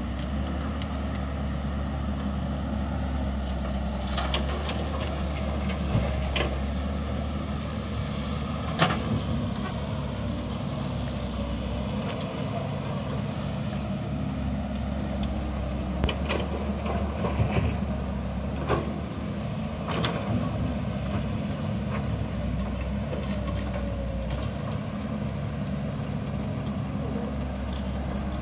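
Caterpillar tracked excavator's diesel engine running steadily under load as it digs and swings, with a few sharp knocks and clatter as the bucket drops earth into the steel bed of a dump truck.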